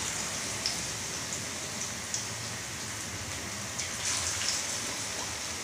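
Pakora batter sizzling as it is dropped by hand into hot ghee: a steady frying hiss with scattered small pops, briefly louder about four seconds in.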